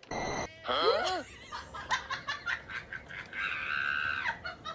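A person laughing, with a held high-pitched cry lasting about a second near the end.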